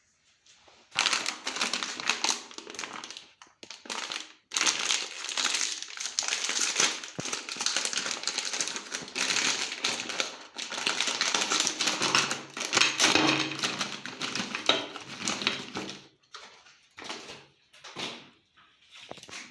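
Meat grinder crushing chocolate candy: a dense run of crunching and crackling that starts about a second in, then breaks into a few short bursts near the end.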